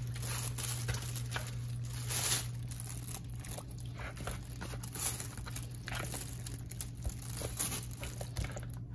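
Plastic bag crinkling and rustling as seasoned chicken pieces are coated in flour inside it.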